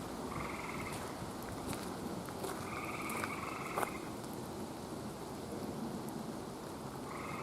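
Gray tree frogs calling from high in the trees: short, musical, pulsed trills, one about half a second in, a longer one around three seconds in, and another starting near the end. Scattered light ticks in between.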